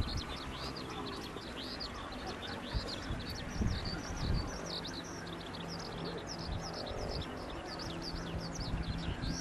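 Many small birds chirping rapidly and without a break, over a low rumble from the approaching formation of Fuji T-3 propeller trainers, whose engine drone settles into a steady low hum about halfway through.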